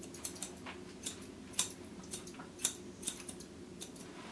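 Grooming scissors snipping a dog's bangs over the eyes: a string of short, crisp snips, one every half second or so at an irregular pace.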